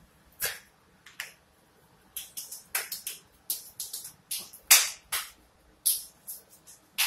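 A person clapping hands to call a dog to follow: two single claps in the first second and a half, then a quick, irregular run of claps from about two seconds in.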